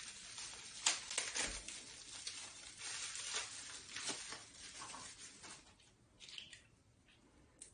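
Plastic packaging crinkling and rustling, with a few small clicks, as a humidifier's power cord is unwrapped by hand. The handling dies away about five and a half seconds in.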